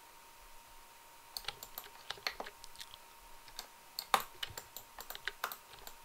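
Computer keyboard and mouse clicking in irregular runs, starting about a second in, with one sharper click about four seconds in.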